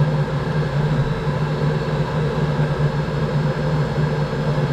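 Hydronic coolant heater running with a steady low hum.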